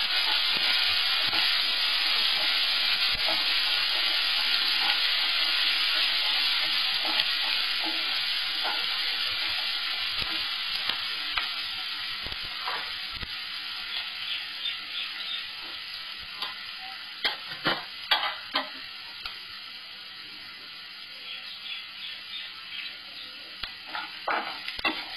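Chopped onion sizzling in hot oil in a nonstick frying pan, loudest at first and gradually dying down. A wooden spatula scrapes and knocks against the pan as the onion is stirred, the knocks coming more often in the second half.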